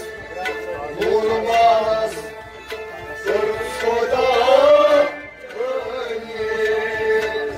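Kashmiri Sufi ensemble playing an instrumental passage: harmonium holding steady notes over tabla, with a melody line sliding between pitches.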